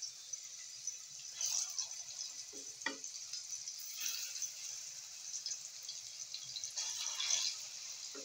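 Saba banana pieces frying in shallow oil in a pan, the oil sizzling steadily with louder crackling flare-ups as more pieces are laid in. A sharp click about three seconds in.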